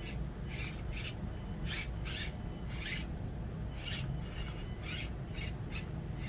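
SCX24 micro RC crawler working over the rocks and dirt of a crawl course: its tires and chassis make short, irregular scraping and crunching sounds, one to three a second, over a low steady hum.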